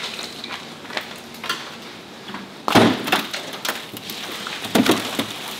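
Black plastic bag crinkling as cold halibut fillets are tipped out of it, with two heavier thumps as they drop into a plastic tote, one about halfway through and one near the end.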